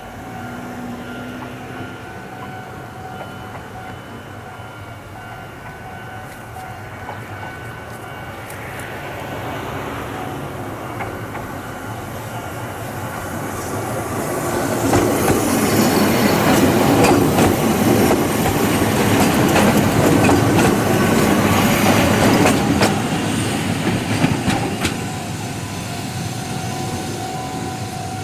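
Ohmi Railway electric train 806F running along the track close by: rail and wheel running noise with clattering over the rail joints builds up, stays loud for about eight seconds, then eases.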